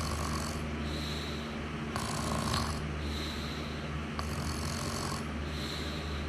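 Snoring in a steady rhythm, about one breath every two seconds, with roughly three breaths over a continuous low hum.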